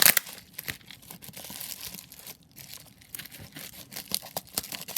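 Packaging being crinkled and torn open by hand: irregular crackles and sharp rustles, loudest right at the start, with a short lull about halfway through.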